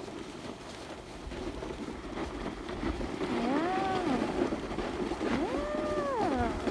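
Snowboard sliding over a packed, groomed cat track, with wind on the microphone. From about three seconds in, a voice joins with long wavering 'ooo' tones that swoop up and down in pitch, about three of them.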